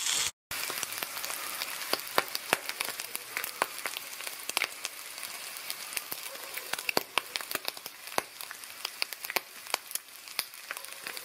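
Chopped bacon frying in a pan: a steady sizzle full of sharp crackles and pops from spitting fat.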